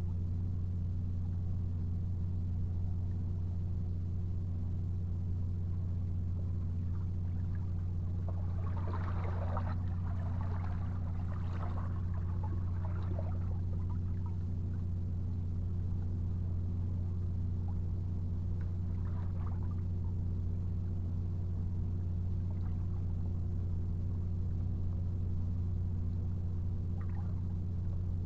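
A steady low mechanical hum at one constant pitch, unchanging throughout, with faint irregular higher rustling or scraping between about eight and fourteen seconds in.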